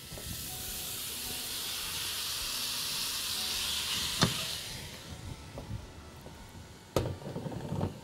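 Chopped spinach going into a hot pot of onion fried in ghee, sizzling with a loud steamy hiss that dies away after about five seconds. Two light knocks, about four and seven seconds in.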